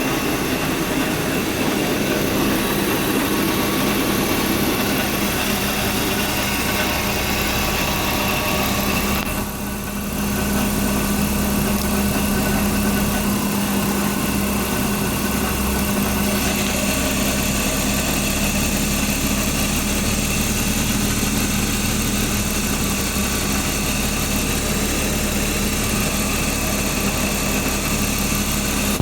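BMW E36 328i's 2.8-litre inline-six idling steadily, with a brief dip in loudness about ten seconds in.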